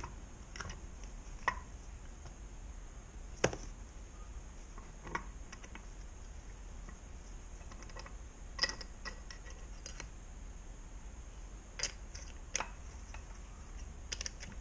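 Light metallic clicks and clinks, scattered and irregular, as the gears and shafts of a Honda NSR 125 R gearbox are handled in the crankcase half, the sharpest about three and a half seconds in. A faint steady low hum runs underneath.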